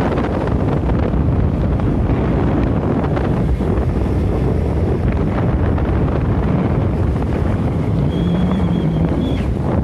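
Wind buffeting the microphone of a camera riding in a moving vehicle, over a steady low rumble of engine and road. About eight seconds in, a brief high steady tone sounds for a second or so.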